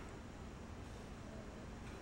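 Quiet room tone: a faint, steady hiss with no distinct sound.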